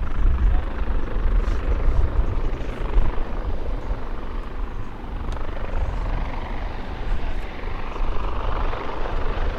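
US Coast Guard MH-65 Dolphin twin-turbine helicopter in slow flight, its rotor and engines running steadily with a deep rumble.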